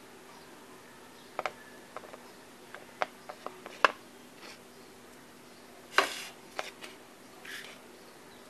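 Light handling noise of fingers on fresh homemade paneer and a plastic plate: scattered small clicks and taps as a cut wedge is pulled off the block, with two louder knocks about four and six seconds in.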